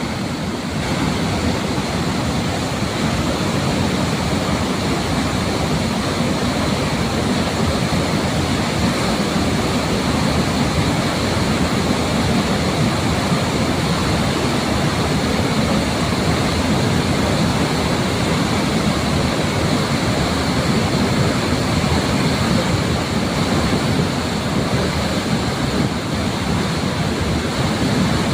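Floodwater rushing steadily through the open spillway gates of the Kadem dam, a loud continuous roar of falling and churning water.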